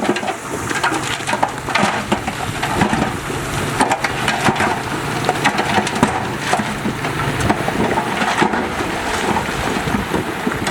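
Heavy earthmoving machine running with a steady low engine hum, under irregular crunching and clattering of soil and stones being dug, pushed or dumped.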